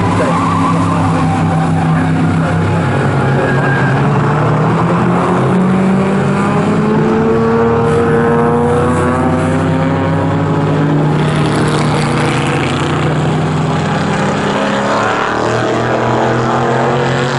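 Several classic GT race cars running at racing speed, led by the Ford V8 engines of Shelby Cobra Daytona Coupes and AC Cobras. Their engine notes overlap, rising and falling in pitch through gear changes as the cars pass.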